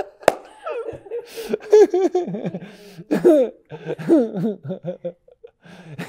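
A man laughing in a string of short bursts, with a brief click just after the start.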